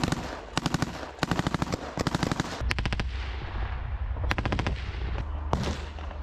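Bursts of automatic rifle fire, five or six rapid shots to a burst, repeated about every half second to a second, with a single shot near the end. A low rumble runs underneath in the second half.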